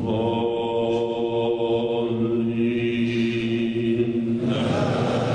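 An elderly imam's voice holding one long, steady note in Quran recitation, a drawn-out vowel of the chanted verse. About four and a half seconds in, the held note ends and a noisier sound comes in.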